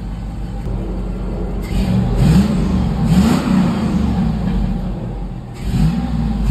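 Chevrolet pickup's swapped-in 5.3 V8, on its stock muffler and exhaust, idling and then revved in a few short blips, the engine note rising and falling with each; the revs come a couple of seconds in and again near the end. The sound is the plain stock V8 note.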